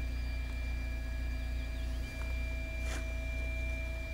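Boat's outboard motor running at a steady speed: a constant low hum with thin steady higher tones over it. A short hiss about three seconds in.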